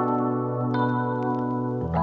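Background music: held chords that change twice.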